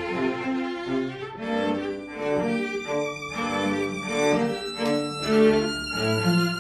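String quartet of two violins, viola and cello playing a tango, the low cello notes changing in a steady rhythm under the violins.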